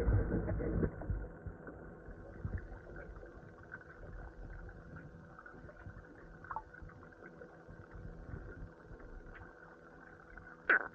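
Faint, steady machinery hum with several held tones, aboard a dome fishing boat. A louder low rumble dies away in the first second, and there is one short sharp click near the end.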